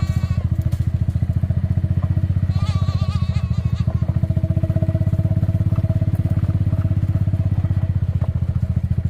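A small engine idling steadily with a fast, even pulse. About three seconds in, a goat bleats once over it.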